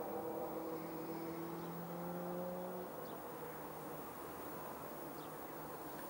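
Steady low mechanical hum that stops about three seconds in, leaving faint outdoor background noise.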